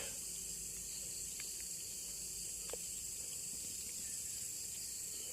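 Steady high-pitched drone of night insects such as crickets, with a couple of faint clicks.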